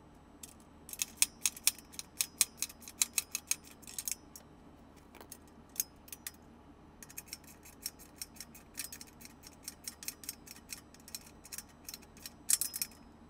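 Ratchet wrench clicking in quick runs as bolts are tightened on a steel power tower frame: one run about a second in, lasting some three seconds, then after a pause a longer run from about seven seconds in to near the end.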